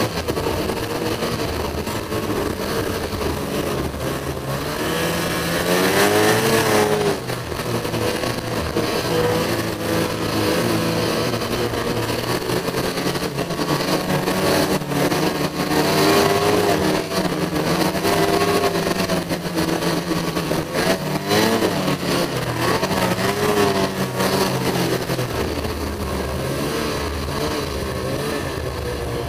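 Ski-Doo Summit snowmobile's two-stroke engine running under way, its pitch rising and falling again and again as the throttle is worked, with a sharp rev about six seconds in.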